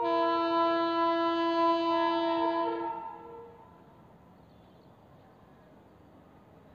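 WAP7 electric locomotive's horn sounding one long blast of several notes at once, ending with a short fade about three seconds in.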